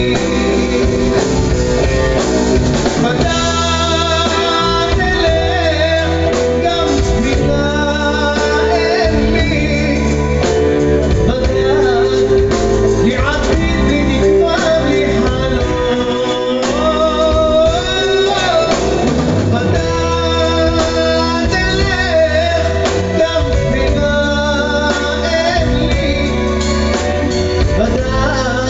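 Rock music with guitar and singing, a wavering melodic line over steady bass notes.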